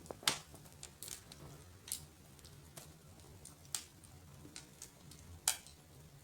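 Wood fire crackling in a fireplace: irregular sharp pops and snaps, the loudest just after the start, a little before the four-second mark and near the end.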